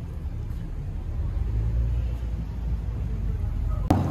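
Low rumble of car traffic on the street beside the sidewalk, swelling a little partway through, with a sharp click near the end.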